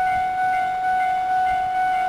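Japanese railway level crossing's electronic warning bell ringing continuously in its old tone: a sustained ringing note with higher notes pulsing on and off in a quick, even beat.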